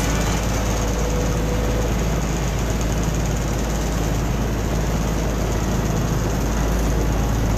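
Engine of a motorised outrigger boat (bangka) running steadily under way, a low hum beneath a constant rush of wind and water.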